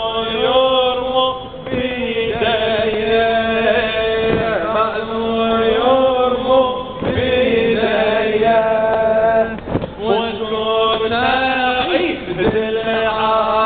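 A male reciter chants an Arabic latmiyah, a Shia mourning lament, in long held notes that waver in pitch. A dull thump comes about every two and a half seconds.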